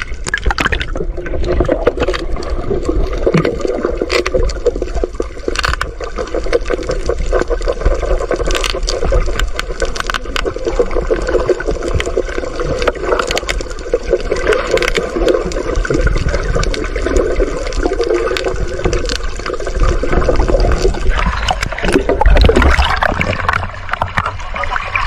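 Muffled water noise picked up by a camera underwater: a continuous gurgling, sloshing rush with scattered sharp clicks and knocks, louder near the end as the camera nears the surface beside the boat.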